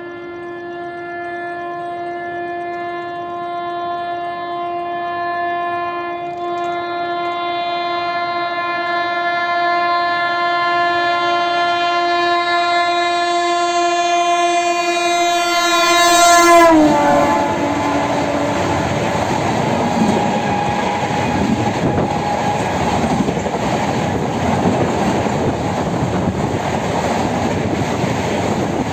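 Express train's locomotive horn held for about seventeen seconds as the train approaches at about 130 km/h, growing steadily louder, then dropping in pitch as the locomotive passes. The coaches then rush by with a loud, continuous rushing noise and wheel clatter.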